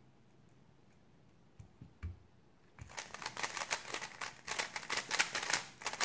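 Rapid plastic clicking and clacking of a GAN 356 XS 3x3 speedcube being turned at full speed during a speed solve, starting about three seconds in. Before it, two soft knocks.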